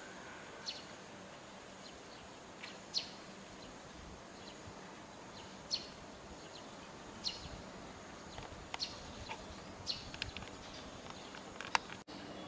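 Small birds chirping, short high calls every second or two over a faint steady outdoor background with a thin high-pitched tone. A sharp click comes near the end.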